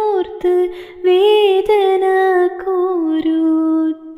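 A woman singing a Malayalam Islamic devotional song about the Prophet's birth, in long held notes whose melody bends slowly up and down.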